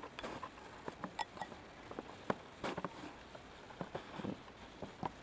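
Paper pages of a booklet being handled and turned: a scatter of small clicks and short rustles, the longest rustle about two and a half seconds in.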